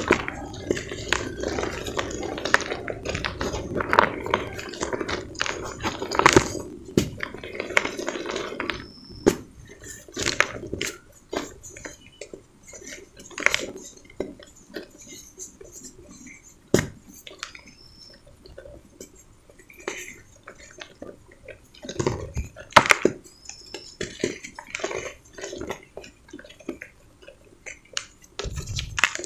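Hands crumbling and squeezing dry, dusty cement balls and loose cement powder in a bucket: a dense gritty rustling and crunching for the first several seconds, then scattered crackles and crunches with quieter gaps between.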